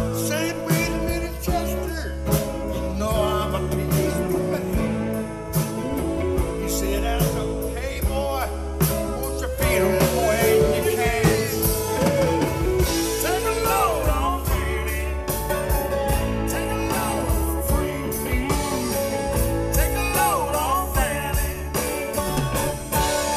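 Live rock band playing an instrumental passage: drum kit, electric bass and guitars, with a melody line that bends in pitch.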